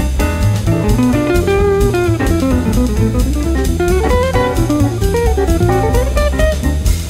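Instrumental jazz: an electric or acoustic jazz guitar playing a melody line of quick notes that rises and falls, over drums and a steady low rhythm section.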